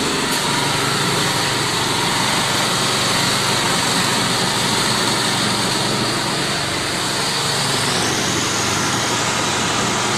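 A row of axial cooling fans above a mesh-belt conveyor running together: a loud, steady rush of air with a low hum underneath.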